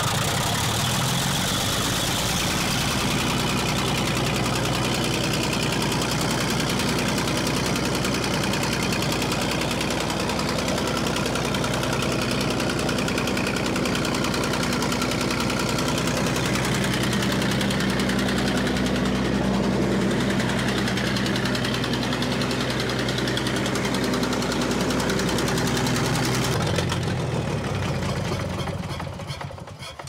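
Minneapolis-Moline 605 cubic inch six-cylinder magneto engine, just fired up, running steadily at idle. It is shut off about 27 seconds in and runs down to a stop within a couple of seconds.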